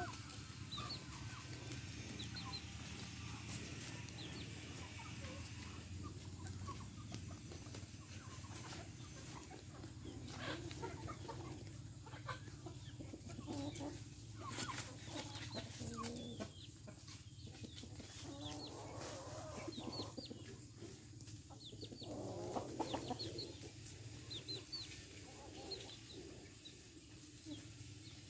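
Chickens clucking as they forage among dry leaves, with many short high calls scattered throughout and a louder run of clucking about twenty seconds in. Sharp clicks and rustles come from the birds picking through the leaf litter.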